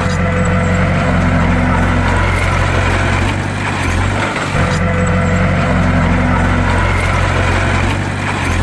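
Bulldozer's diesel engine running steadily with a deep, even drone. The same stretch of sound repeats about every four and a half seconds.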